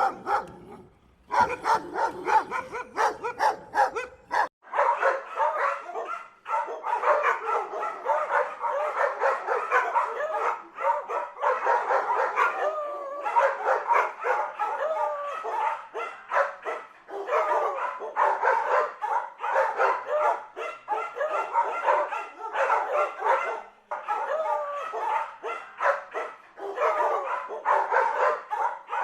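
Dog barking and yipping in quick, nearly continuous runs of short calls.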